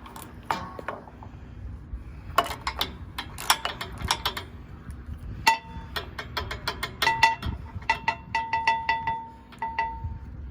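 Wrench work on the metal net wrap brake of a Vermeer baler as it is loosened: a run of sharp metallic clicks and clinks, the later ones ringing briefly, several a second toward the end.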